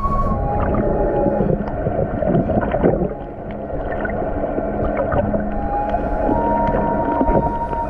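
Underwater sound picked up by a GoPro while snorkeling: a muffled rumble with scattered clicks and a steady low hum, over which a higher humming tone changes pitch twice.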